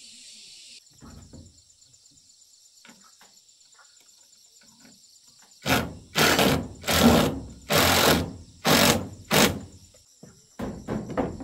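Cordless drill driving screws into wooden cabin boards, in six short bursts in quick succession starting just past the middle, followed by a few lighter knocks.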